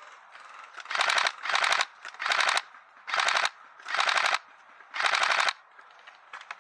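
Airsoft guns firing on full auto: six short bursts of rapid shots, each about half a second long and coming roughly every three-quarters of a second.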